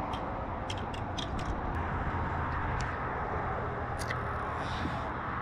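Steady road-traffic noise, with a few light sharp clicks in the first second and a half and another about four seconds in.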